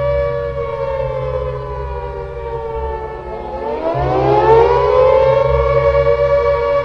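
Civil defense-style siren sounding two close tones at once. About three seconds in, its pitch sags, then it winds back up, growing louder, and holds steady.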